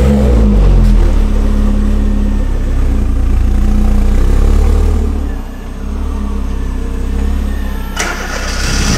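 Ford Focus ST's turbocharged five-cylinder engine running at low revs as the car moves off, the revs rising and falling, with a short hiss near the end.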